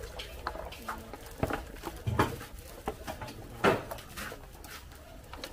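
Scattered light knocks and clatter over a low background, the loudest about two seconds in and again just before four seconds in.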